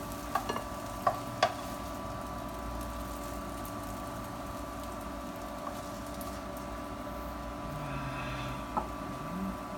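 A steady electrical hum from a kitchen appliance, with a few light clicks of utensils, several in the first second and a half and one more near the end.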